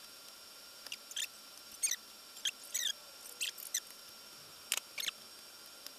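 A small screwdriver working screws into the cover of a WatchGuard Firebox firewall case. About ten short, high squeaks and clicks come at uneven intervals, and a few of them slide in pitch.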